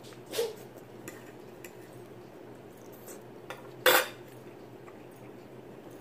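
A few scattered taps and clinks on a dinner plate as chicken is pulled apart by hand, with one louder sharp knock about four seconds in.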